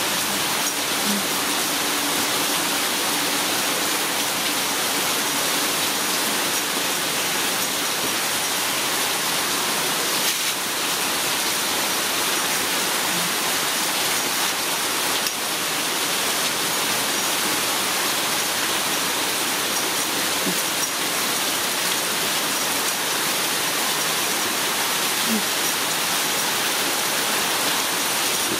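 Steady rain, an even hiss that runs on without a break.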